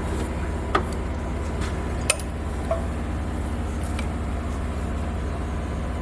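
A steady low hum with four light clicks and knocks spread across it.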